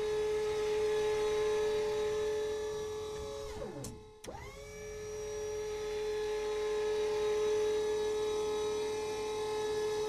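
Electric motor of a missile-launcher turret whirring as it turns, a steady hum with one strong tone. About three and a half seconds in, it winds down in pitch, cuts out for a moment, then spins back up and runs steadily again.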